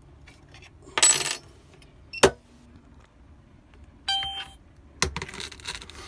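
Metal clinking as a high-security key blank is fitted in the clamp of an SEC-E9 CNC key cutting machine: a bright metallic jingle about a second in, then a single sharp click about two seconds in. A short tone sounds about four seconds in.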